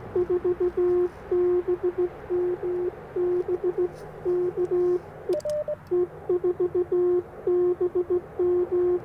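Morse code (CW) from the Icom IC-705 transceiver: one low, steady tone keyed on and off in quick dits and longer dahs. A few sharp clicks and a brief higher-pitched tone break in about five seconds in.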